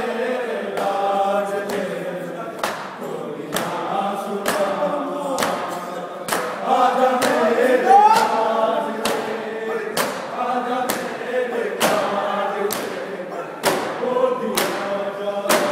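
A crowd of men chanting a noha, a mourning lament, together, with their open hands striking their chests in unison about once a second in matam.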